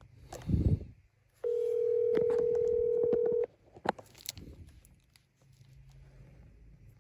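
A short knock, then a steady electronic beep tone held for about two seconds, followed by a few light clicks.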